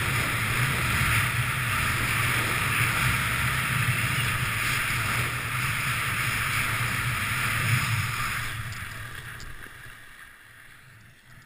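Skis running over groomed corduroy snow with wind rushing over the microphone: a steady, loud hiss and rumble. It dies away after about eight seconds as the skier slows.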